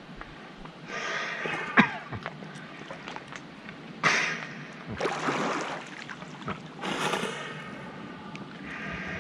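Water splashing and sloshing in several bursts over a steady water-noise background, with a sharp knock just under two seconds in.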